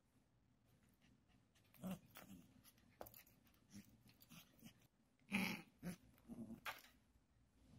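Pembroke Welsh Corgi puppy making a few short play growls while wrestling and biting a plastic lattice ball toy, with a light click of the toy. The sounds start about two seconds in and the loudest comes about five and a half seconds in.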